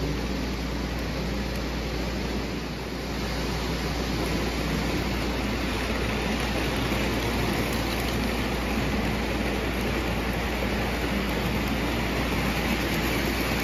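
O gauge model trains rolling along three-rail tubular track, a steady rolling rumble and hiss of metal wheels on the rails as the passenger cars pass close by.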